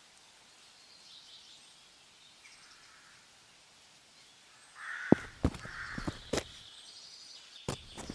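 Quiet outdoor ambience with faint bird calls, then a crow cawing twice about five seconds in, among several sharp clicks and taps that continue near the end.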